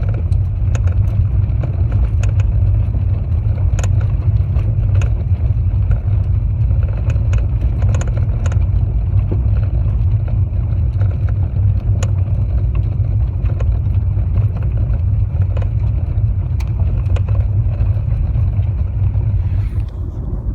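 Steady low rumble of a Mitsubishi Lancer IX under way, with scattered sharp knocks at irregular intervals from a shock-absorber strut, the sign of a worn or loose strut.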